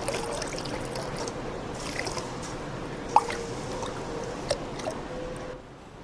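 Thick liquid clay slip pouring and dripping from a jug into a plastic bucket, with scattered small splashes and drips over a faint steady hum.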